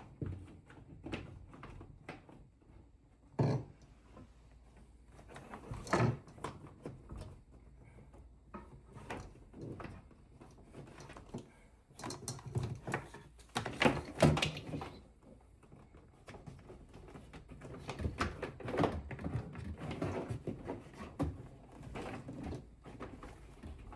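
Irregular knocks, clicks and rustling from hands working cables behind a wall-mounted TV, with sharper knocks about three and a half, six and fourteen seconds in.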